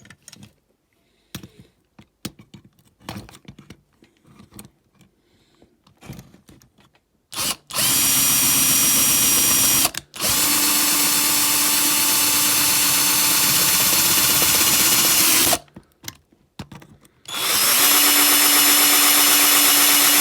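Small electric drill boring into the metal casting of a diecast toy car, most likely drilling out a base rivet to take it apart. It runs at a steady pitch in three stretches of a few seconds each with short stops between, after some seven seconds of faint handling clicks.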